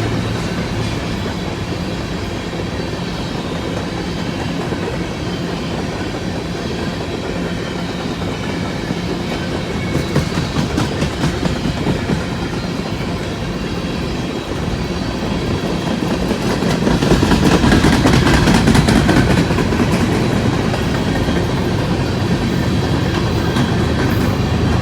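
Empty coal cars of a freight train rolling past, wheels clicking over the rail joints, with a louder stretch of clatter about two-thirds of the way through.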